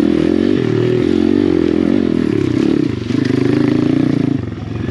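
Apollo RFZ pit bike's small single-cylinder four-stroke engine revving up and down under throttle while trail riding, easing off briefly about halfway through and again near the end.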